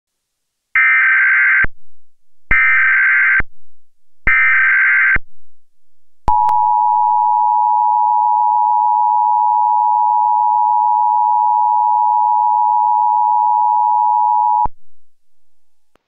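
Emergency Alert System tones. First come three short screechy data bursts of the SAME header, about a second each. Then the two-tone attention signal sounds as a steady two-note buzz for about eight seconds and cuts off.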